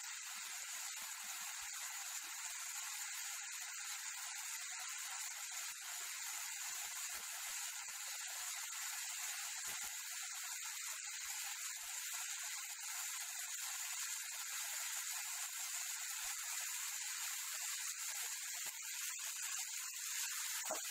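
Chopped tomatoes, coriander leaves, green chillies and garlic sizzling steadily in oil in a frying pan, being fried down until their juices cook off. A spatula starts stirring near the end.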